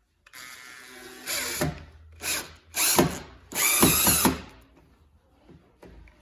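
Power drill driving screws into a door hinge: one longer steady run of the motor, then three shorter, louder bursts on the trigger as the screw is driven home.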